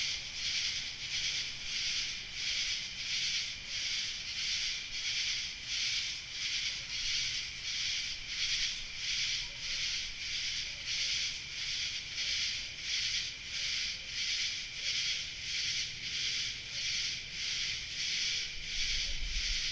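Summer night insect chorus pulsing in an even rhythm of about two beats a second, a dense high buzzing that never stops. A brief low rumble comes near the end.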